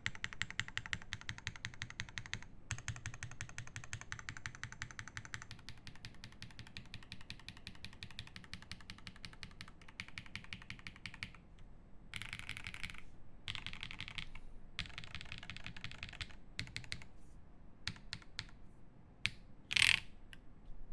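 Fast typing on a Frog TKL mechanical keyboard with lubed Zaku switches, an aluminium plate and GMK keycaps: a dense run of key clacks. About halfway through, the clacking gives way to a few short noisy bursts and scattered keystrokes, with one sharper, louder sound near the end.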